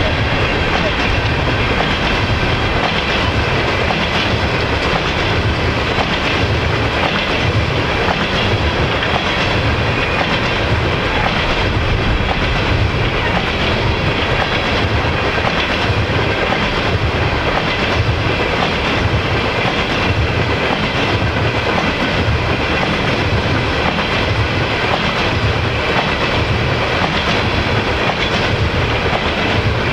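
Freight train of empty oil tank cars rolling past, steel wheels clicking over the rail joints in a steady rhythm over a constant rumble.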